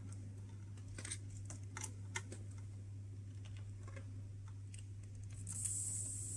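Faint, irregular clicks over a low steady hum from a model railway test bench. About five and a half seconds in, a steady hiss starts while a hand works the controls.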